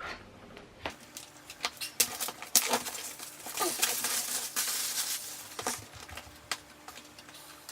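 Drone packaging being handled and opened: rustling of cardboard and wrapping, with scattered clicks and taps and a longer stretch of rustling about halfway through.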